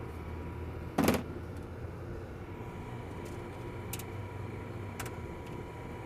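Handling noise from work on an open rooftop HVAC unit: one loud clunk about a second in, then a couple of light clicks, over a steady low hum.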